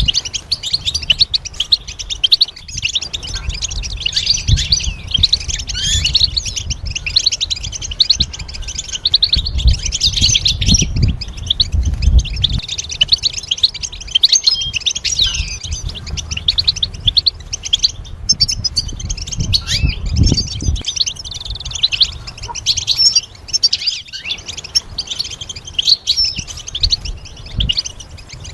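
European goldfinch singing a long, rapid, twittering song of tinkling chirps and trills, with hardly a break.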